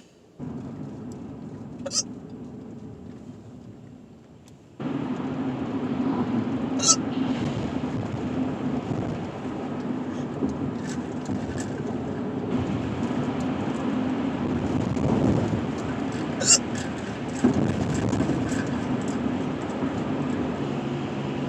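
A woman hiccuping, about five sharp hiccups spread across some twenty seconds, over the steady road and engine noise of a car interior that grows louder about five seconds in.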